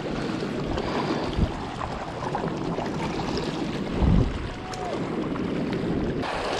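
Wind buffeting a body-worn camera's microphone over small waves washing on a rocky shoreline, a steady rough rush, with a brief low rumble about four seconds in.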